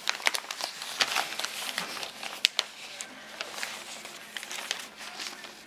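Newspaper crinkling and rustling in short, irregular crackles as a baby's hands grab and handle the sheet.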